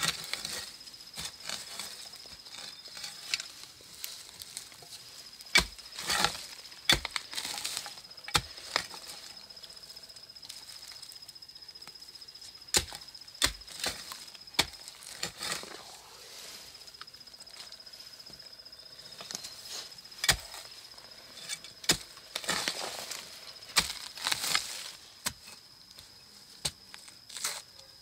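Short-handled hoe chopping into earth: irregular knocks and thuds of the blade striking soil and roots, with scraping and loose dirt falling in between.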